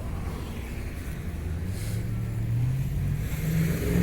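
A road vehicle's engine accelerating from a traffic light, its note rising steadily over about three seconds over a low rumble of traffic.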